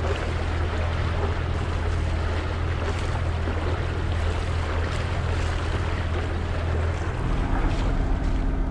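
A catamaran's engine running steadily under way, a low even hum under the rush of wind and water. About seven seconds in the engine tone changes to a different, lower hum.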